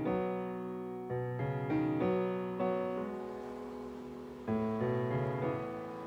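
Background piano music: chords struck a few times and left to ring out.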